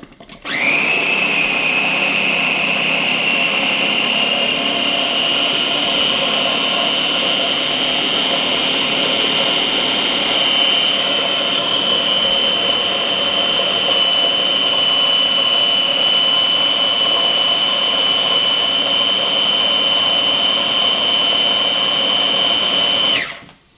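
Press-top electric mini food chopper running continuously, puréeing white beans and jalapeños into hummus. Its motor whines steadily and high, spins up quickly at the start and rises a little in pitch about halfway through. It winds down with a short falling whine near the end, when the top is released.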